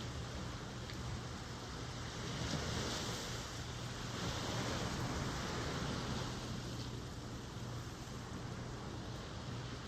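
Ocean surf washing ashore, a wave building about a quarter of the way in and easing off past the middle, over a steady low rumble.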